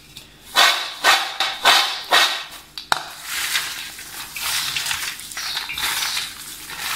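Hands rubbing and sifting garlic cloves and their dry papery skins in a steel platter: about five loud crackly rustles, a sharp click about three seconds in, then steady rustling.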